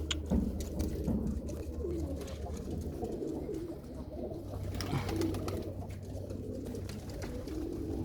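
Several domestic pigeons cooing in their loft, low gliding coos overlapping one another.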